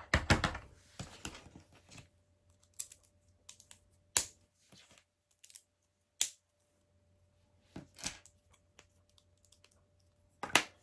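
LEGO plastic pieces clicking and tapping as they are handled and fitted onto a model: a flurry of small clicks at first, then single sharp clicks every second or two.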